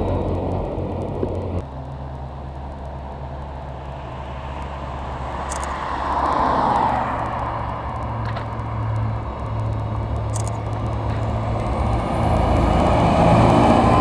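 Claas Axion 930 tractor engine running steadily as it pulls a loaded silage trailer along the road, getting louder near the end as it comes close. A brief rush of road noise swells and fades about six to seven seconds in.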